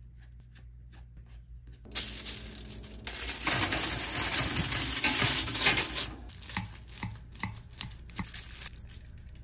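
Aluminium foil crinkling loudly for a few seconds as it is pulled over a tray of slider buns. This is followed by a run of short crackles as a knife cuts down through the toasted buns onto the foil.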